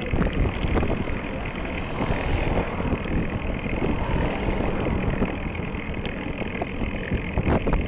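Wind buffeting a bicycle-mounted camera's microphone over road and tyre rumble, with scattered sharp clicks. A Vauxhall hatchback approaches from behind and passes about four to five seconds in.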